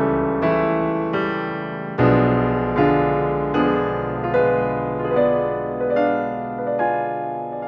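Background music: piano, with chords struck about once or twice a second and each left to ring and fade.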